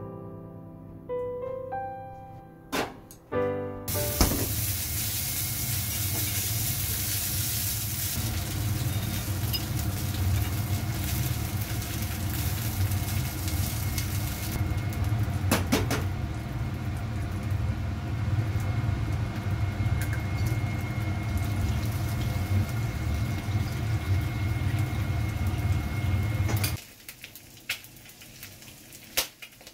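After a few seconds of piano music, sausages fry in a small cast-iron pan over a gas burner: steady sizzling with a low rumble underneath. It cuts off near the end.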